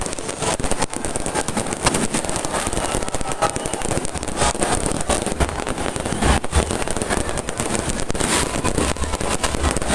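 Fireworks going off in quick succession: dense crackling with frequent sharp bangs and pops, without let-up.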